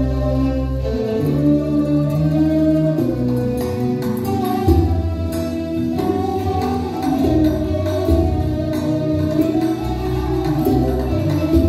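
Recorded music playing for a dance: a melody in held notes over sustained low bass tones.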